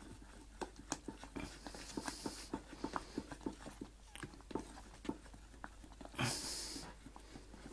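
Thick cheese and onion soup coming to the boil in a stainless steel saucepan while it is stirred: irregular soft plops and taps, about three or four a second. A short rushing hiss comes a little after six seconds in.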